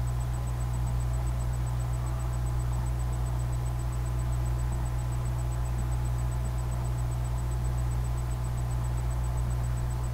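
Steady low hum with a faint hiss and a thin high whine, unchanging throughout.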